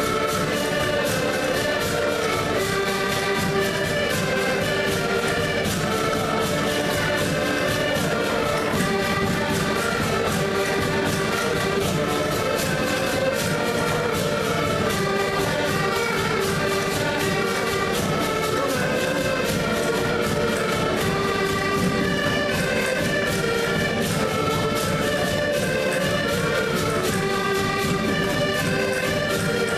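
Portuguese folk ensemble playing: several button accordions carry a lively tune in sustained chords over a steady beat from a bass drum, with a small plucked string instrument.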